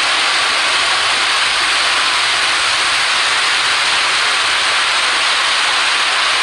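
Garden fountains and cascades running: a steady, loud rushing hiss of spraying and falling water.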